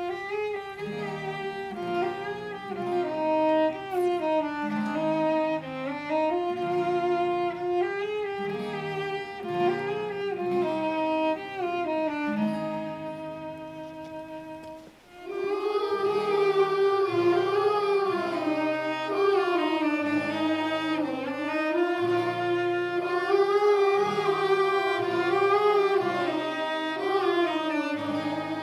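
Instrumental music: a violin-like string melody over cello and bass notes, briefly dropping away about halfway through and then returning fuller.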